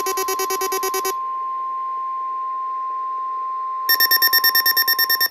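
NOAA Weather Radio Required Weekly Test received on a weather radio: the end of a buzzy, rapidly pulsing SAME digital header burst, then the steady 1050 Hz warning alarm tone. About four seconds in, a second buzzy data burst starts over the tone.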